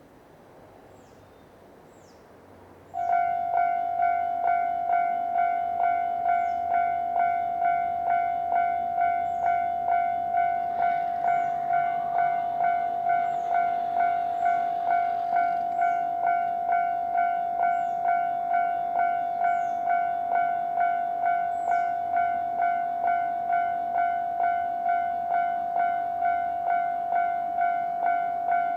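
Japanese railway level-crossing electronic warning bell, which starts about three seconds in and rings a steady clang about one and a half times a second.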